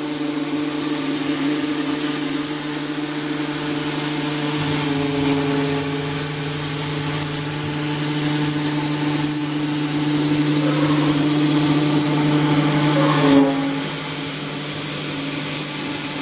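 SKW 1325 CNC router engraving a foam mould: the spindle and drive motors run steadily, with a hum and a high hiss. About 13 seconds in, a short whine glides up and back down.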